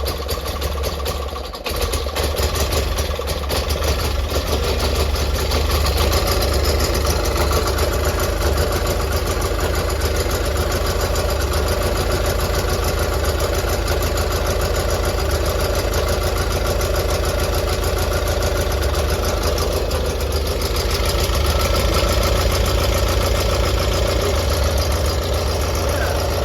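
Gravely tractor's Onan CCKA two-cylinder engine running steadily just after a cold start, on choke with the throttle set a little above idle. It dips briefly about a second and a half in, and runs a little louder near the end.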